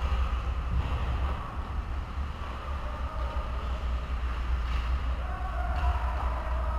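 Indoor ice hockey rink ambience during play: a steady low rumble, with faint distant voices calling out in the second half.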